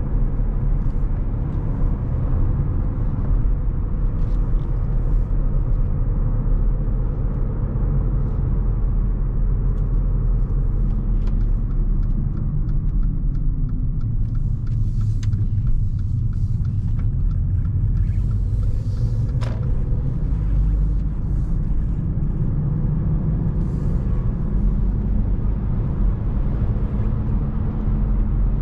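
A 2015 Mercedes-Benz GLA250 being driven: its 2.0-litre turbocharged inline-four petrol engine and tyre and road noise make a steady low rumble, with the engine tone shifting slowly and a few faint light ticks over it.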